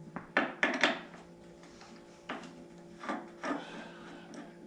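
Metal parts of a nutcracker converted into a roll crimper being handled and taken apart: a quick run of sharp clicks and knocks about half a second in, then a few scattered knocks and scraping.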